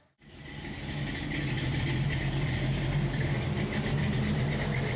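Vehicle engine idling steadily, fading in just after the start.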